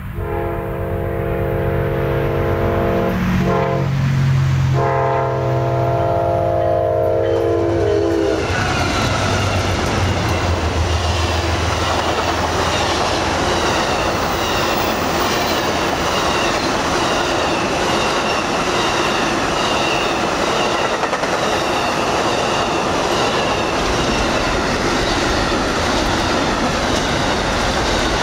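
Amtrak Auto Train's locomotive horn sounding a multi-note chord for the grade crossing, in blasts with a brief break, the last held until about eight seconds in as the diesel locomotives pass. The long train then rolls by close up, bi-level passenger cars followed by enclosed autorack cars, with a steady rumble and clickety-clack of wheels over the rail joints.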